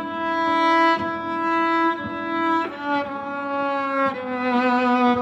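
Viola bowing slow, sustained notes layered over looped viola parts from a loop pedal, changing note about two and a half seconds in and again about four seconds in.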